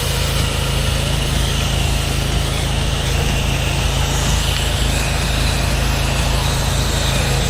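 A pressure-washing rig's small gas engine running steadily at full load.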